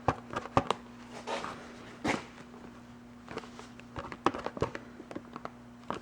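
Touch-up paint pen tip being dabbed and pressed on paper to get the paint flowing: irregular light taps and clicks, with a faint steady hum underneath.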